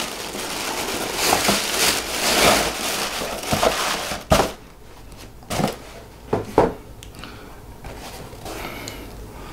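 Tissue paper crinkling and rustling as it is pulled out of a shoebox, followed a little past the middle by a few light knocks as the sneaker is lifted out and handled.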